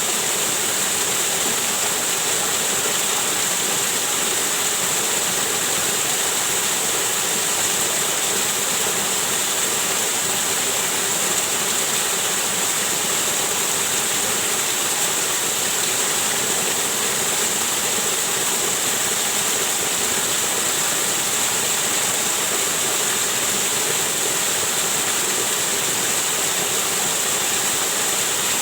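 Waterfall with water pouring and splashing in a steady, unbroken rush, strongest in the high hiss.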